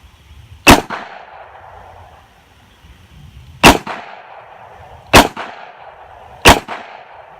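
Four shots from a Smith & Wesson Model 66-8 revolver. There is a pause of about three seconds after the first shot, then the rest come about one and a half seconds apart. Each shot is followed closely by a fainter second crack.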